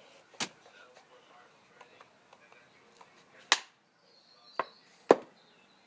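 A wooden stick used as a drumstick, struck against something in slow, uneven drumming: four sharp knocks, the loudest two about three and a half and five seconds in.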